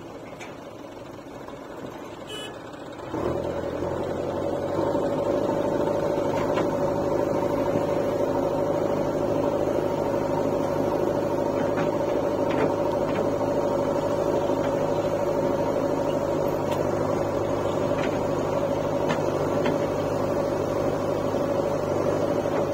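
Diesel engine that starts up suddenly about three seconds in, rises again a couple of seconds later, then runs steadily at a constant speed.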